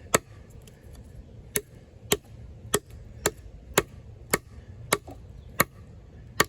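Off-Grid Caiman XXL, a 7-inch D2-steel bowie knife, chopping into wood with the front of the blade: about ten sharp strikes, roughly two a second.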